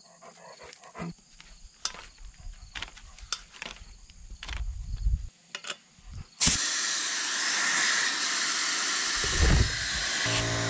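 Light clicks and taps of brass fittings being handled on a fluid-extractor tank. Then, about six seconds in, a sudden loud, steady hiss of compressed air as the air hose is coupled to the extractor. Just before the end a steady hum joins it.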